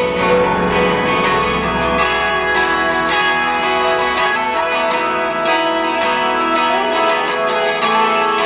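Guitar music with strumming playing steadily from a small cylindrical mini speaker, a track played off a USB flash drive.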